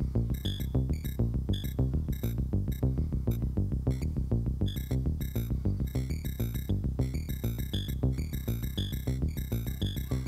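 Eurorack modular patch built around a Rossum Assimil8or sampler, playing a fast repeating figure of short sampled notes, about six or seven a second, with a higher blip recurring over it. The Make Noise Maths envelope that shapes the notes is being adjusted.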